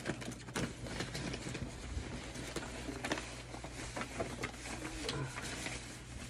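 Paper slips and cards rustling and crinkling as a hand rummages through a box of them, with many small irregular ticks and taps.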